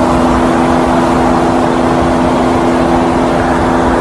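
Loud, steady highway driving noise: tyre and wind rush with a constant engine drone, heard from a car moving at speed alongside other traffic.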